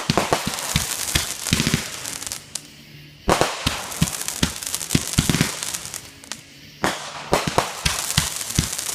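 A large consumer firework going off: rapid loud pops and crackling in three volleys, with short pauses between them.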